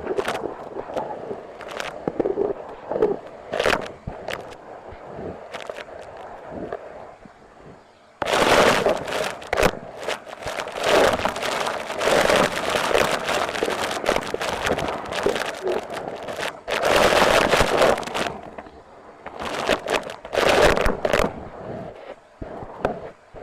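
Numatic Hetty vacuum cleaner sucking up debris: irregular bursts of crackling and rattling, briefly quieter about eight seconds in.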